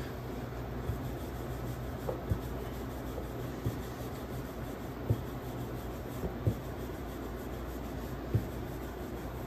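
Wooden rolling pin rolling chapati dough on a round wooden board: a soft rubbing, broken by several short wooden knocks as the pin and board shift, over a steady low hum.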